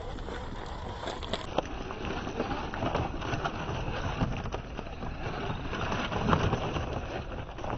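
Radio-controlled Jeep Wrangler Rubicon-style car driving over rough ground: an uneven rumbling noise full of small clicks and crackles.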